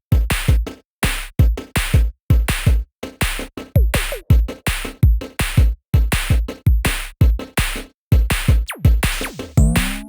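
Electronic music with a punchy drum-machine beat, chopped into stuttering bursts separated by brief silent gaps, with a falling pitch sweep about eight and a half seconds in.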